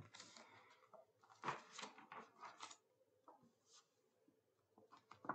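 Faint rustling and soft taps of a book's paper pages being handled and turned.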